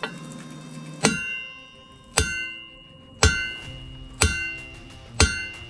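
Sledgehammer striking a steel prop knocker on a boat's propeller shaft five times, about once a second, each blow a sharp metallic clang that rings on and fades. The blows are meant to shock the propeller loose from the shaft taper.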